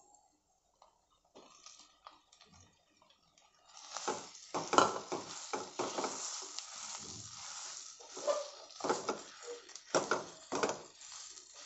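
Silicone spatula stirring and mashing boiled potatoes into peas in a nonstick kadhai: a run of uneven scraping strokes that starts about four seconds in.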